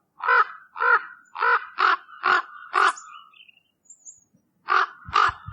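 Common raven calling: a quick run of six calls, about two a second, then a pause of over a second and two more calls near the end.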